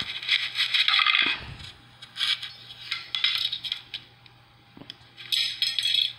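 Clattering and scraping of small hard objects in several short bursts, with a low thump about a second in, played back through laptop speakers.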